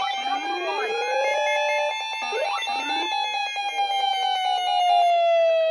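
Layered warning siren tones at several pitches: repeated rising sweeps over a held wailing tone, with all the tones slowly dropping in pitch toward the end.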